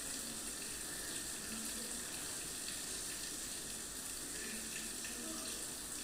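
Sesame and jaggery mixture with melting ghee sizzling steadily in a nonstick frying pan while a spatula stirs it. The jaggery syrup is cooking down to a thick paste.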